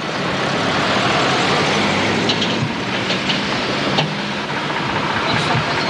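Steady noisy rumble with a few sharp knocks and clanks from a field gun crew handling the gun and its gear.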